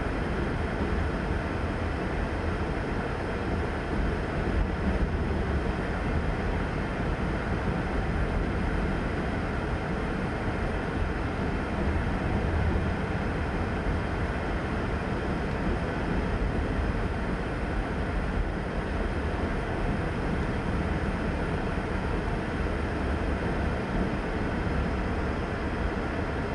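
Covered hopper cars of a CSX freight train rolling past steadily: a continuous low rumble, heard from inside a car.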